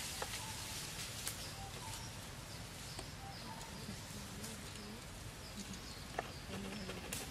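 Faint forest background with short, scattered chirping animal calls and a few light clicks.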